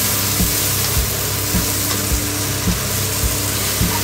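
Water spinach stir-frying in a hot pan, hissing and sizzling steadily as a spatula tosses it. A steady beat of background music runs underneath, about two beats a second.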